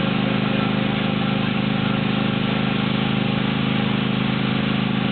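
Engine of a ride-on train running steadily, an even, low drone that does not change.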